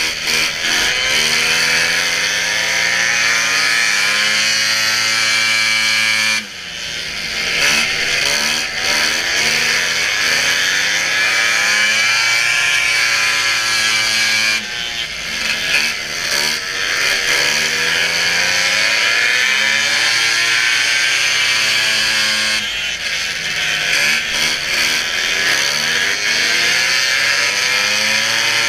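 Racing snowmobile engine running hard at high revs. It drops off briefly and climbs back up three times, about every eight seconds, as the throttle is eased and opened again.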